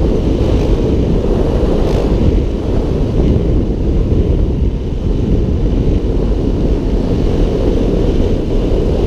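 Steady wind noise over the microphone of a motorcycle rider's camera at road speed, mixed with the dirt bike's engine running.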